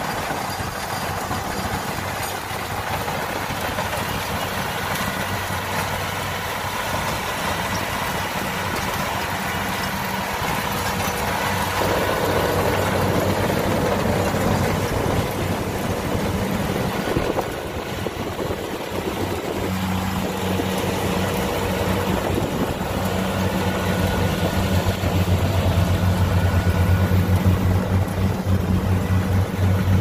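Kubota DC-70 combine harvester's diesel engine and machinery running steadily while cutting lodged rice, growing louder over the last few seconds.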